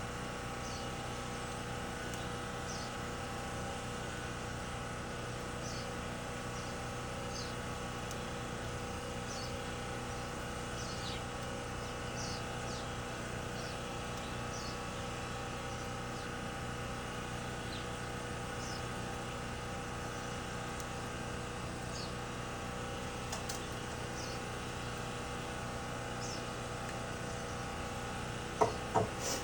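Steady machine hum holding several fixed tones, with faint short high chirps about once a second. Near the end come a few sharp clicks of a hand tool working on electrical wire insulation.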